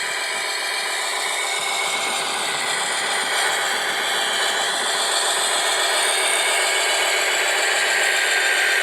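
Small electric motors and gearboxes of RC model machines running, a steady whine with a rattle, several whining tones slowly rising and falling in pitch.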